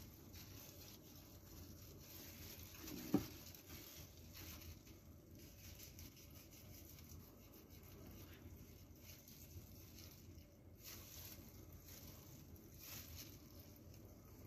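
Faint knife strokes slicing through a sushi roll on a cling-film-wrapped wooden cutting board, with soft clicks now and then. One sharp knock about three seconds in.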